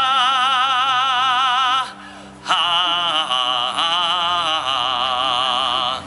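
A high solo voice singing in an operatic style: two long held notes with wide vibrato, split by a short breath about two seconds in.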